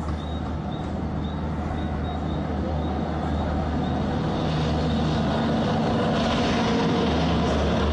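WAP-5 electric locomotive approaching and passing at speed, its steady electric whine and hum growing louder. About six seconds in, the locomotive draws level and a rush of wheel-on-rail noise from the coaches builds.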